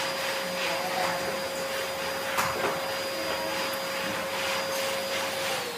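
Vacuum cleaner running steadily on carpet, a rushing hum with a constant motor whine, then switched off at the very end, the whine falling as the motor winds down.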